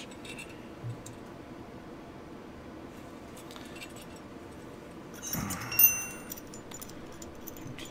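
Small steel Mosin Nagant bolt parts clinking and ringing as they are picked up and handled, in a short cluster of clinks a little past five seconds in, after a few faint clicks.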